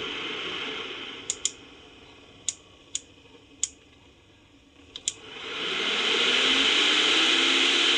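12-volt DC cooling fan of a homemade kitchen chimney running with a steady rush of air that dies away over the first couple of seconds. Several sharp clicks follow; then, about five and a half seconds in, the fan spins back up with a rising hum to a steady rush of air.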